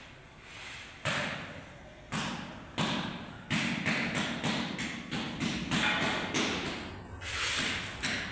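A run of dull thumps with scuffing after each. The first comes about a second in, then they quicken to two or three a second.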